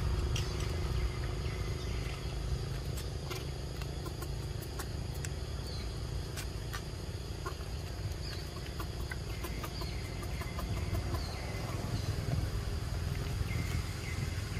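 Outdoor ambience: a steady low rumble with scattered sharp clicks and short high chirps.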